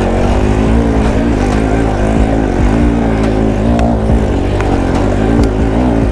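Bajaj Pulsar NS200's single-cylinder engine running under load at low speed, its revs rising and falling as the motorcycle picks its way over a rough, rocky trail, with a few sharp knocks.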